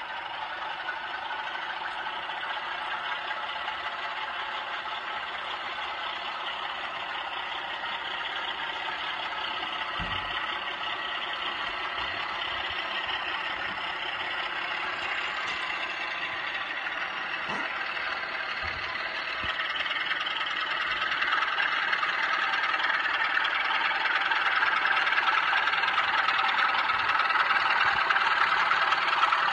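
Model British Rail Class 24 and Class 25 diesel locomotives running on the track, their sound units playing a Sulzer diesel engine sound over the rattle of the models. It grows louder about two-thirds of the way in, as the locomotives come close.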